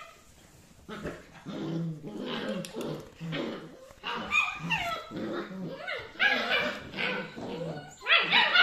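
Rough collie puppies growling and yapping as they play-fight, starting about a second in, with a string of short pitched calls and louder, higher yaps near the end.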